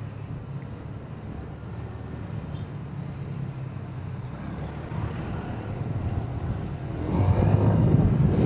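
Motorcycle riding slowly in traffic: a steady low engine hum with road and wind noise on the camera microphone. About seven seconds in the sound grows louder and rougher as the bike pulls alongside a tricycle to pass it.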